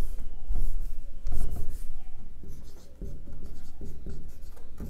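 Marker pen writing on a whiteboard: a run of short, irregular strokes as letters are written.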